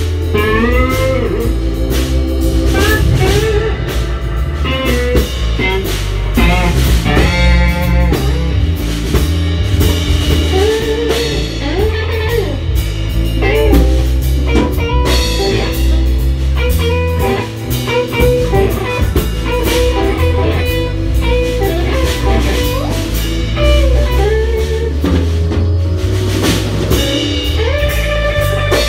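Live jazz-fusion band playing: an electric guitar lead line with bent notes over electric bass, drum kit and keyboards.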